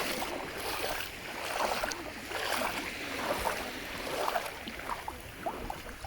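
Small sea waves washing onto a beach, a steady noisy wash that swells and eases.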